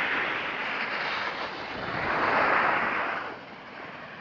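Snowboard and skis sliding over packed snow: a steady scraping hiss that swells about two seconds in and eases off near the end, with wind rushing over the microphone.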